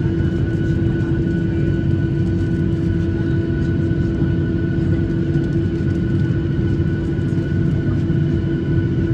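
Boeing 737 turbofan engine heard from inside the cabin, running steadily at low taxi thrust: a constant whine over a low rumble.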